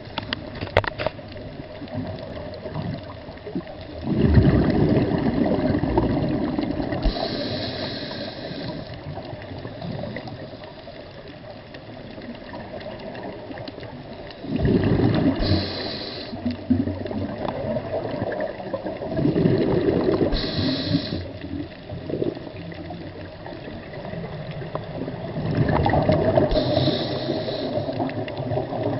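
Underwater sound picked up by a camera in the sea: a continuous wash of water noise, with four louder rushes of bubbles and breathing from the swimmer holding the camera.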